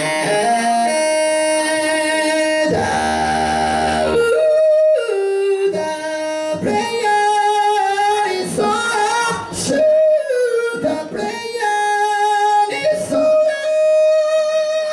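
A man singing into a microphone while accompanying himself on a Korg electronic keyboard: a slow melody of long held notes that glide between pitches over keyboard chords.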